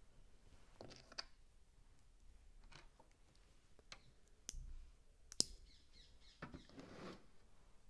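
Small plastic Lego pieces clicking and ticking in the fingers, with one sharp click about five and a half seconds in. Faint harsh parakeet calls come from outside.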